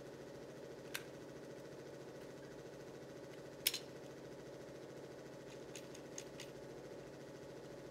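Caulking gun being handled and loaded with a tube: a metal click about a second in, a sharp clack about three and a half seconds in, and a few lighter clicks near the end. A steady low machine hum runs underneath.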